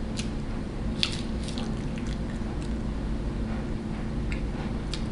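Close-miked chewing of burrito and crinkle-cut fries, with scattered wet mouth smacks and clicks over a steady low hum.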